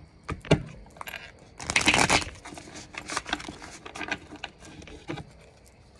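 Tarot cards being handled and shuffled: scattered light clicks and taps, with one brief, louder rustling shuffle about two seconds in.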